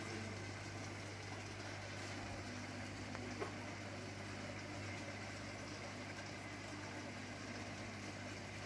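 Steady low hum with an even hiss from aquarium equipment such as filters and pumps running, with one faint click about three and a half seconds in.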